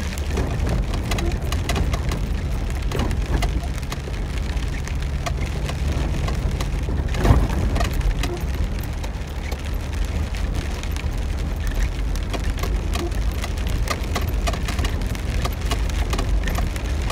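Heavy rain striking the roof and windshield of a moving vehicle: a dense, rapid patter of drops over the steady low rumble of the vehicle driving on a dirt track. There is one louder knock about seven seconds in.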